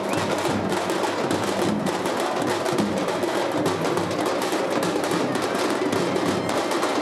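Processional drums beaten in a fast, dense, unbroken rhythm, with the hubbub of a large crowd beneath.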